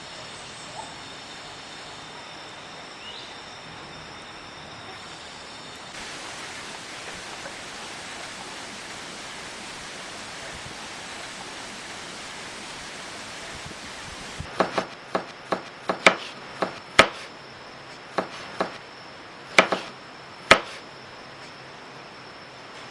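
Steady outdoor background hiss with a faint high steady tone, then, about two-thirds of the way through, a run of about a dozen sharp, loud knocks at an uneven pace over some six seconds, like hammering or chopping on wood.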